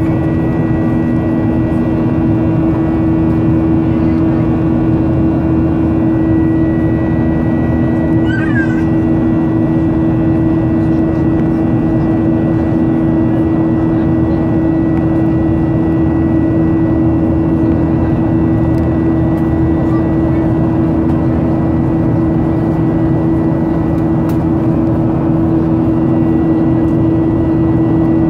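Cabin noise of a Boeing 737-800 in its climb after takeoff: the CFM56 turbofans' steady drone with a strong humming tone and fainter whines above it. A brief high wavering squeak about eight seconds in.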